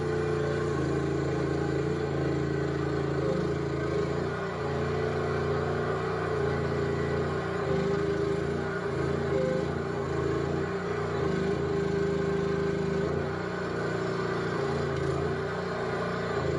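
Compact skid steer's engine running steadily under light working load, its pitch shifting a little several times as it is worked.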